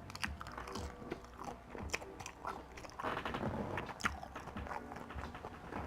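A person chewing and biting food, with many small crisp clicks and mouth smacks.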